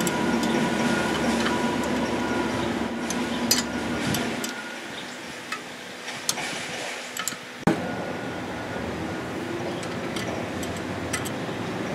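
Hands and tools working metal parts on a turbocharger in an engine bay: a few scattered sharp metallic clicks and clinks, the sharpest about two-thirds of the way through, over a steady mechanical hum that drops away about a third of the way in.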